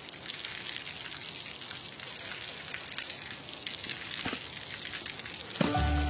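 Water dripping and spattering onto wet pavement, a steady rain-like patter full of small ticks. Near the end, music with a deep bass note comes in.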